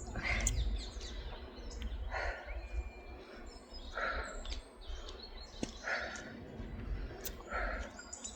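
A person breathing out hard in a steady rhythm during exercise repetitions, one short puff about every two seconds, over wind rumble on the microphone. Faint bird chirps can be heard.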